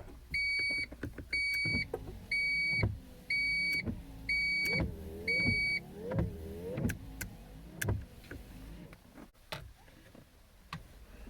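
1992 Honda Accord's windshield wiper motor driving the wipers back and forth about once a second, with a click at each sweep, as a used replacement wiper switch is tested. Over the first six seconds the car's warning chime beeps six times, and the wipers stop about eight seconds in.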